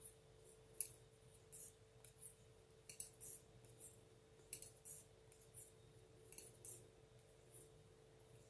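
Faint, irregular light clicking of knitting needles, a few clicks a second, as stitches are knitted across a row, over a faint steady hum.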